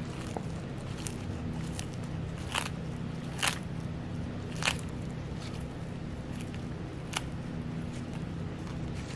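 Sulcata tortoise biting into and tearing crisp lettuce leaves: several short, crisp crunches, the loudest about three and a half and four and a half seconds in, over a steady low hum.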